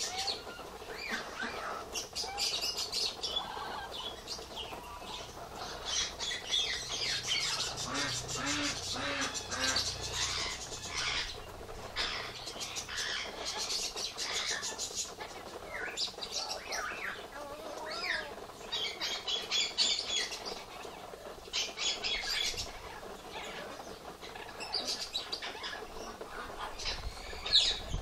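Parrots chirping and squawking in short bursts of rapid chatter, a few seconds apart.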